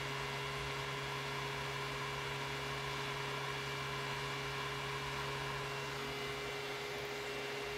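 Steady electrical hum with a faint higher whine from an INVT GD20 variable-frequency drive and the three-phase motor it runs, as the drive brings the motor up to speed in reverse.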